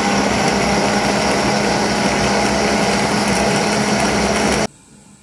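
Electric countertop blender running at full speed, a loud steady motor whine with a low hum, as it purées a liquid mix of buttermilk, gram flour, tomato and spices. It cuts off abruptly near the end.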